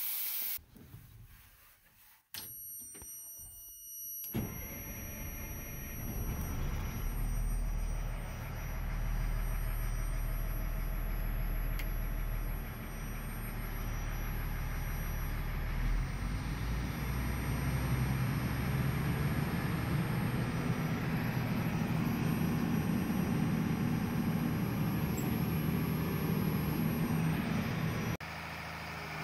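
M1090 LMTV dump truck's diesel engine running with the dump hoist's hydraulic pump engaged to raise the bed. The drone comes in about four seconds in, a deep hum that gives way to a higher, steady drone about halfway through.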